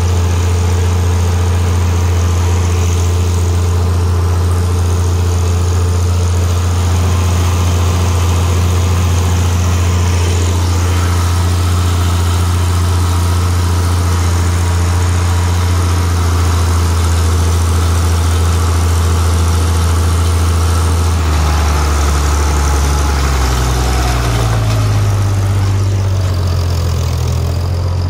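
IHC 956 tractor's diesel engine running steadily under load while pulling a power harrow and seed drill, heard from the cab. About 21 seconds in, the engine note rises and wavers up and down.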